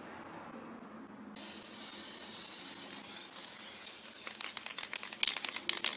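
Aerosol can of black spray paint spraying onto a satellite dish: a steady hiss that starts about a second and a half in, with a run of sharp clicks over the last two seconds.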